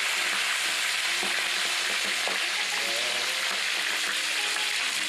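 Whole fish frying in hot cooking oil in a pan: a steady, dense sizzle.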